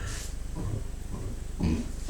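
A person doing chest gulps: a quick series of short, low gulps of swallowed air, about two a second, as they take in air to belch. A breathy hiss of air comes at the start, and the strongest gulp comes near the end.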